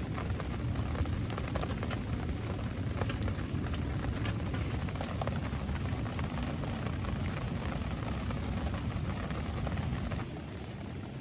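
Steady rain falling, with many scattered sharp drop ticks over a low rumble. About ten seconds in, it gets quieter and the rumble thins.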